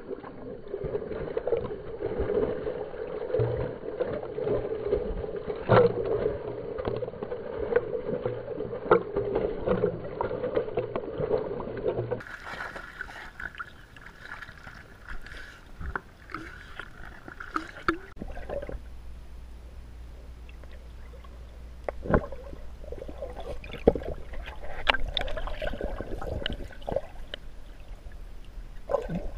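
Pool water splashing and sloshing around a camera at the waterline as a yellow Labrador retriever paddles past, with scattered sharper splashes. Later the sound turns muffled, with a low steady rumble and gurgling as the camera is underwater.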